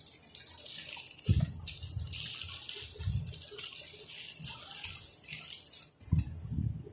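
Clear plastic bag crinkling and rustling as a pair of headphones is worked out of it by hand, with a few dull handling bumps. The crinkling stops about six seconds in.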